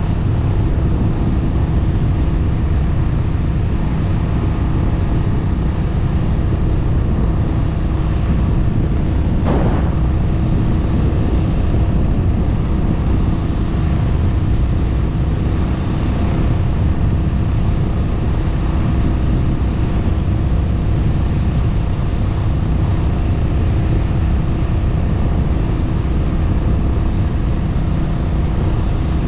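Honda Rebel 1100 DCT's parallel-twin engine running steadily while cruising at highway speed, mixed with heavy wind rush on the microphone.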